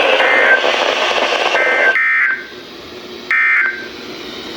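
NOAA Weather Radio SAME data bursts heard through a weather radio's speaker: short bursts of rapid warbling digital tones, each well under a second and spaced about a second and a half apart, the end-of-message code after a Severe Thunderstorm Watch message. A steady radio hiss drops away about two seconds in.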